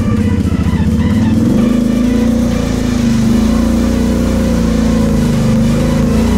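Kawasaki KFX 700 quad's V-twin engine running at low revs as it creeps through a muddy water hole, its pitch wavering up and down with the throttle.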